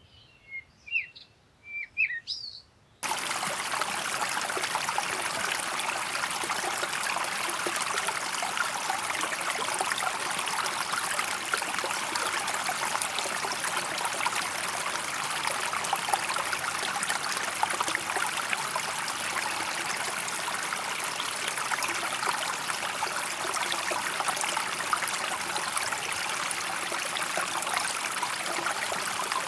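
A small bird chirping in quick, high calls for about the first three seconds, then an abrupt cut to the steady rush of a flowing stream.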